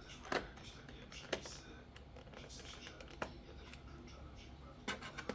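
A few sharp, irregularly spaced clicks and taps from a laptop being handled during its repair, over a low steady hum.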